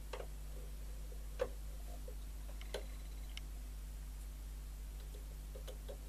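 A screwdriver working on the back of a transistor radio: a few scattered light clicks and taps, the loudest about a second and a half in, over a steady low hum.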